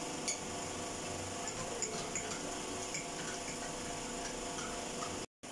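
Steady room hum with a few faint, light clinks of a spoon or stirrer against a cup as drinks are stirred. The sound cuts out briefly near the end.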